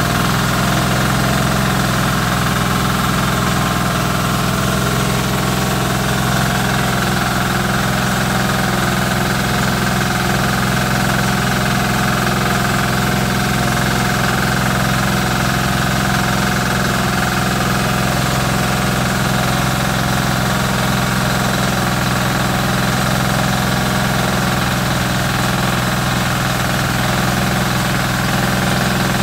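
Small diesel engine running at a steady speed, belt-driving a rice milling machine as paddy is fed through it.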